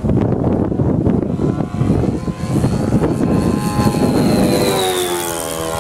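Radio-controlled model airplane making a fast low pass, its motor and propeller note falling in pitch from about three seconds in as it goes by. A rough rushing noise fills the first half.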